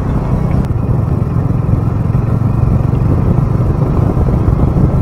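Bajaj Dominar motorcycle's single-cylinder engine running steadily as the bike is ridden along, with road and wind noise.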